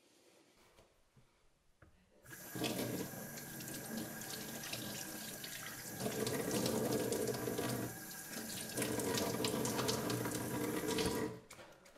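Kitchen pull-down faucet turned on about two seconds in, water running into the sink, louder at times as the stream hits cupped hands. It is shut off about a second before the end.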